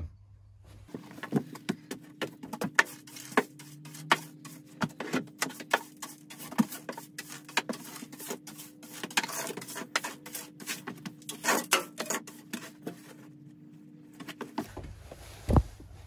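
Chinese diesel air heater clicking and ticking irregularly, several times a second, as it cools just after its power was cut at full temperature. A faint steady hum runs underneath, and there is a single thump near the end.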